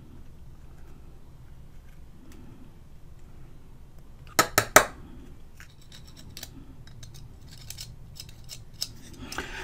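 Small metal tweezers scraping and clicking as they dig into the pitch potting around a radio power transformer's lead wire. The scraping is faint, with three sharp clicks in quick succession about halfway through and a few lighter ticks after.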